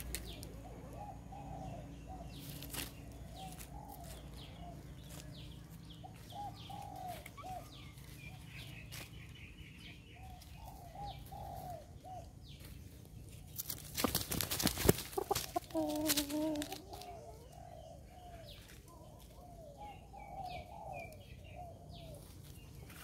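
Chickens clucking softly and repeatedly in short calls. About two-thirds of the way through comes a brief loud rustling burst, followed by a louder call.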